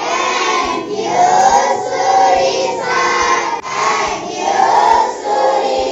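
A group of children singing together in unison, in short phrases of about a second each with brief breaks between them.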